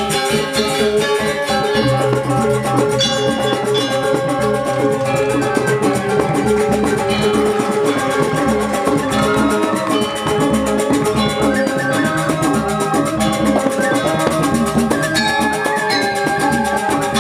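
Balinese gamelan music: bronze metallophones ringing over drumming.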